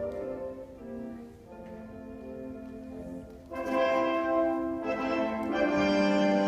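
Recorded orchestral ballet music, with strings and brass holding sustained notes; it swells louder and fuller about halfway through.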